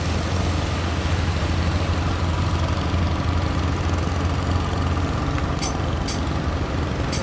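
A boat's engine running steadily with a low hum, under a constant rush of surf and wind. Near the end, a run of short high ticks, about two a second.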